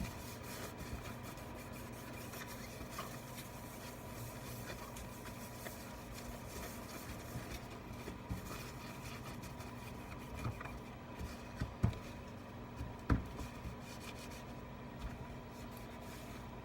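Faint rubbing of a cloth wiping out the inside of an opened iPad, over a steady low hum, with a few light taps about two thirds of the way through.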